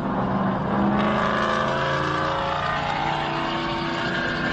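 Heavy truck's engine and road noise at highway speed, heard from inside the cab. About a second in, several pitched tones join in, some sliding slowly in pitch.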